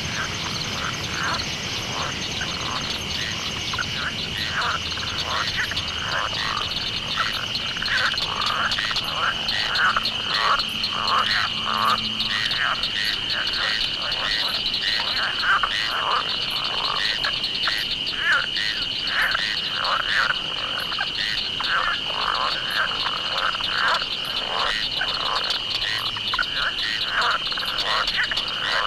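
A dense chorus of animal calls: many short overlapping calls each second over a steady high trill, growing a little louder several seconds in.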